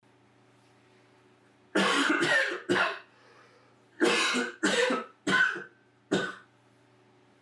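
A person coughing in two fits: about three coughs a couple of seconds in, then four more from about four seconds in, over a faint steady hum.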